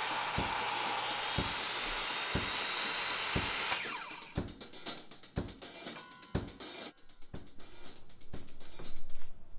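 A Milwaukee 10-inch circular saw cutting a scarf into 3/4-inch okoume plywood. It is let off just under four seconds in and winds down with a falling whine. Drum-kit music with a steady beat of about one thump a second plays under it throughout and is left on its own after the saw stops.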